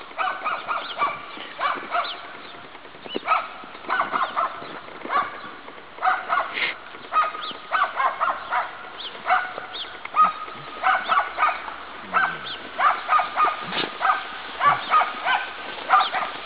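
Animal calls: short pitched calls repeated in quick clusters about every second.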